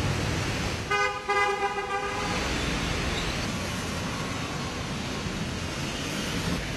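A vehicle horn honks about a second in, for roughly a second and a half with a short break, over the steady hiss of rain and tyres on a wet road.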